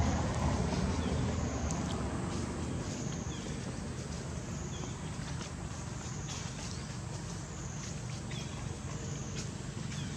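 Steady low outdoor rumble, with a few faint, short high chirps and scattered light clicks.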